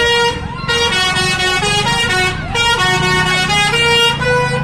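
A bus's telolet horn, a multi-tone musical air horn, playing a quick tune of held notes that step up and down several times in a row.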